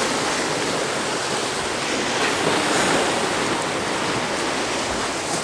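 Ocean surf washing and breaking, a steady rush of water that swells a little about halfway through.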